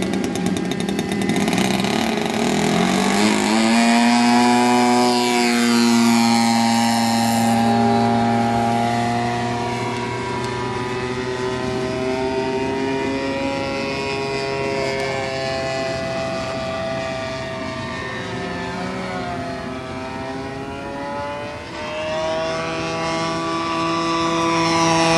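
Two-stroke Evo 35 engine of a Hangar 9 P-47 radio-control model plane at full throttle. Its pitch climbs about two to four seconds in as the plane takes off, then it runs as a steady drone that rises and falls in pitch as the plane flies past.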